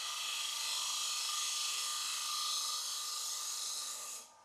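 Square high-speed-steel cutter of a Robert Sorby TurnMaster making a shear cut inside a wooden bowl spinning on a lathe: a steady hissing scrape of wood being shaved for a finishing cut. It stops suddenly about four seconds in as the cutter leaves the wood.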